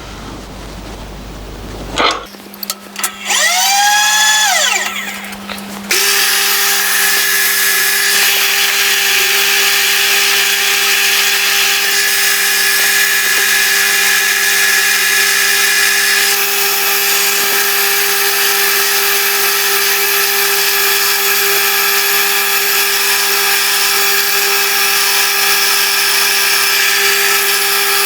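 Machine drill boring a clearance hole in a small machined block. A few knocks, then a whine that sweeps up and down as the machine comes up to speed, then steady running with a constant cutting hiss.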